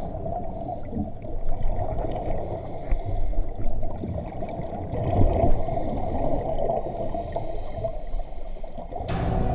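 Underwater audio of a scuba diver breathing through a regulator: muffled bubbling and gurgling of exhaled air, with irregular louder swells.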